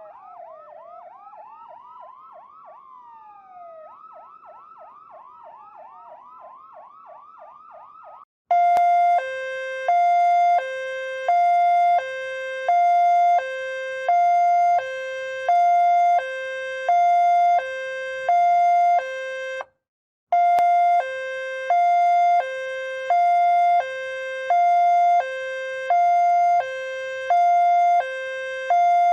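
Ambulance siren, first fainter and sweeping, switching between a slow wail and a fast yelp. About eight seconds in it cuts out, and a much louder two-tone hi-lo siren starts, alternating a higher and a lower note with each held about half a second. It stops for a moment near the middle, then carries on.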